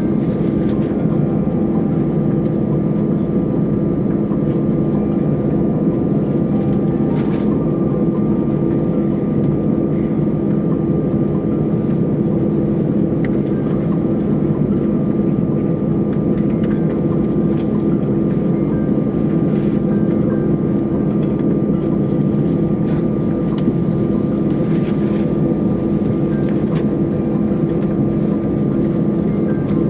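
Steady cabin drone inside an Airbus A320 on the ground, from engines at idle and the air conditioning, with two low hums and a thin higher whine held constant throughout.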